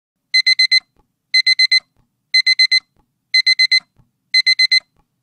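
Digital timer alarm beeping in quick groups of four high beeps, one group each second, starting just after a silence: the countdown has reached zero.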